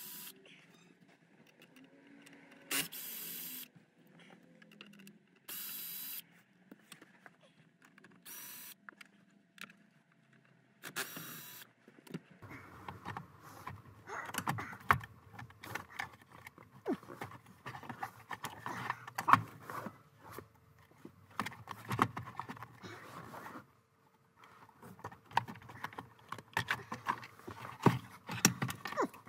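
A cordless power tool runs in several short bursts, loosening bolts under a car's dashboard. From about twelve seconds in come dense clicking, knocking and rattling as plastic trim and wiring are worked loose and pulled out.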